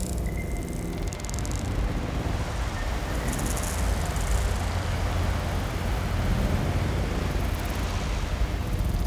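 Electronic ambient music: a deep, steady rumbling drone under a noisy hiss, with brief patches of high crackle a few seconds in and again near the end.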